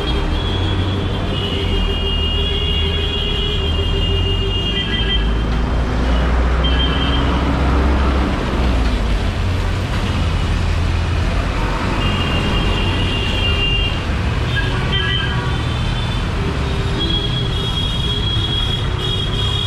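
Busy city street traffic: engines of cars and buses running in a steady rumble, with several car horns honking on and off.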